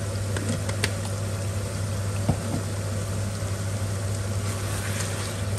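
Masala curry simmering and sizzling in a steel kadai on a gas stove, over a steady low hum, with a few short sharp ticks in the first half.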